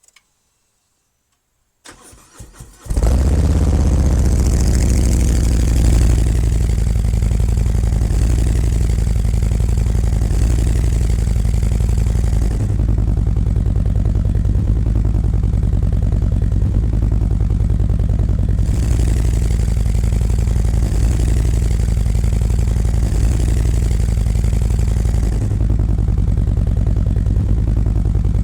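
Harley-Davidson V-twin started through Khrome Werks 4.5-inch HP-Plus slip-on mufflers fitted with louvered baffles: the starter cranks briefly about two seconds in, the engine catches about a second later, then it idles steadily and loudly. With the baffles in, the exhaust sounds a little muffled.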